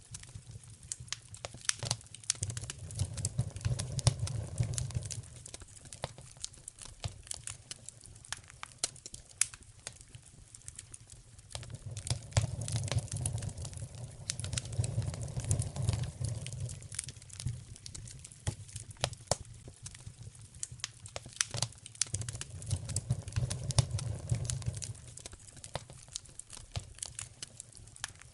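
Wood fire in a fireplace crackling with frequent sharp pops, and a low rumble that swells up and fades three times.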